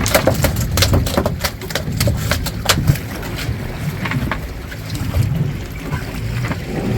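Wind buffeting the microphone on an open fishing boat, with a rapid series of sharp knocks and clatter over the first few seconds, thinning out later.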